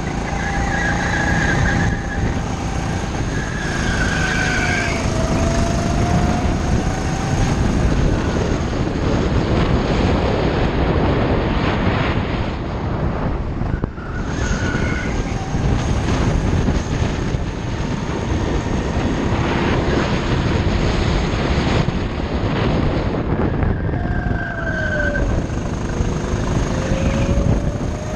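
Go-kart engine running hard on a lap, heard from the driver's seat over a constant rush of wind and vibration. Its note drops going into corners and climbs again on the straights, twice.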